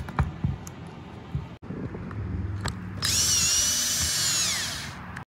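Handling clicks, then a cordless drill/driver running in a steady high whine for about two seconds, which drops in pitch as the motor slows and stops. It is driving screws into the battery housing.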